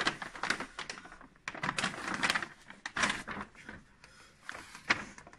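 Black plastic bag rustling and crinkling as it is handled and its handles are hooked onto a steel coil spring, with irregular clicks and taps.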